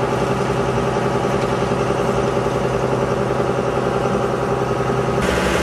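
Shrimp boat's engine running steadily, a low regular throb under an even hum. Near the end the sound changes abruptly, and the engine keeps running.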